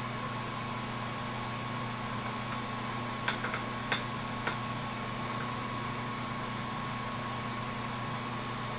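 Steady hum and hiss of a glassworking torch and workshop ventilation running. A few light clicks come between about three and four and a half seconds in, as a hot glass gather on a rod is pushed down into a metal star optic mold.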